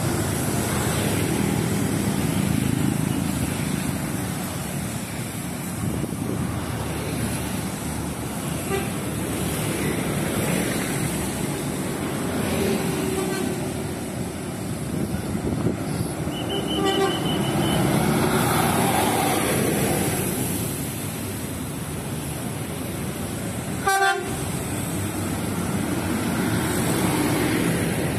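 Steady road traffic with cars and motorcycles passing, broken by short horn toots. The loudest is a brief horn blast about three-quarters of the way through.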